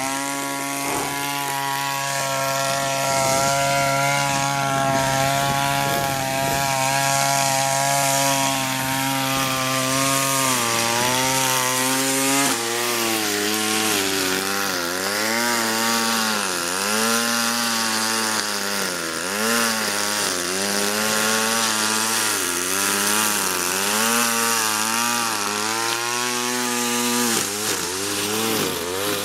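Gas string trimmer engine running at full throttle, its throttle rigged wide open. The pitch holds steady at first, then from about twelve seconds in it drops and repeatedly dips and recovers as the line bogs down in the weeds.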